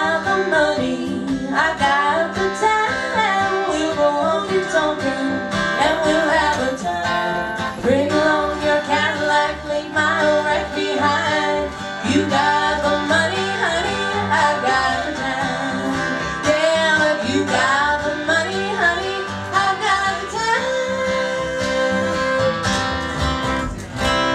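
Live country music: an acoustic guitar strummed over a plucked upright bass, with two women singing together. Toward the end the voices settle onto longer held notes.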